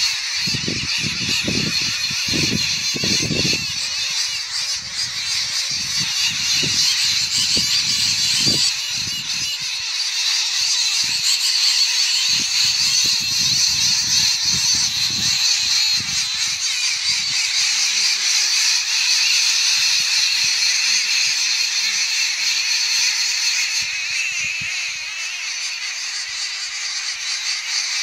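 Many birds calling at once, a dense, continuous high chatter. Wind buffets the microphone with low rumbles during the first eight seconds or so.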